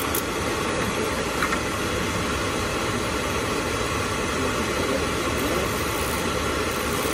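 Beckett oil burner's motor and blower fan running steadily after a reset, with the igniter sparking. The burner is not lighting; the fault is a restricted, unsteady oil supply.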